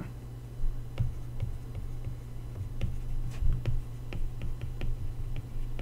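Scattered light taps and clicks of a stylus on an iPad's glass screen as a word is handwritten, thickest in the second half, over a steady low hum.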